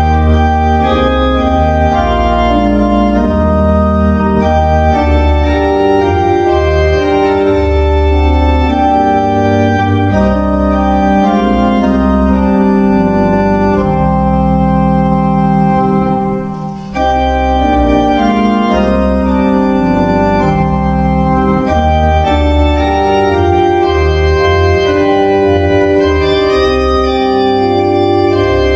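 Organ playing slow, held chords over a strong bass line, with a brief break between phrases about seventeen seconds in.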